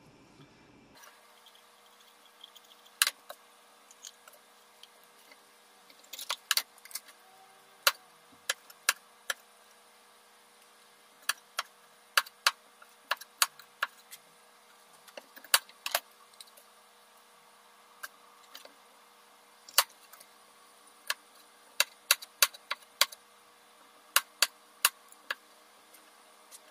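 Chef's knife chopping bell peppers on a plastic cutting board: sharp, irregularly spaced knocks of the blade striking the board, some in quick runs of two or three, over a faint steady hum.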